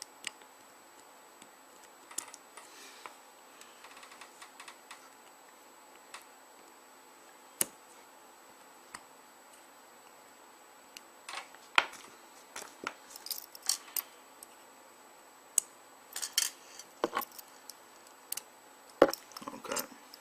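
Scattered small clicks, taps and scrapes from a small flathead screwdriver and the plastic and metal parts of a BlackBerry 9650 being pried and handled during disassembly. The clicks are sparse at first and come much more often from about halfway through.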